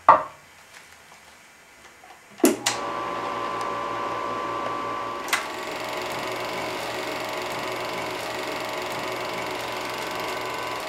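8 mm film projector being switched on: a sharp click, then about two and a half seconds in a couple of clicks as the motor starts and the projector settles into a steady running whirr. Another click a few seconds later, as the projection lamp comes on.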